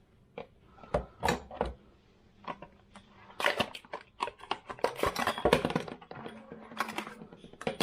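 Metal clicks, knocks and light clattering as a new tap and its fittings are handled and fitted onto a sink, with a dense run of knocks in the middle.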